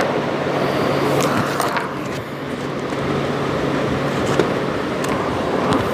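Steady background rumble with a low hum, picked up close by a clip-on lavalier microphone, with a few sharp clicks and knocks of the mic being handled.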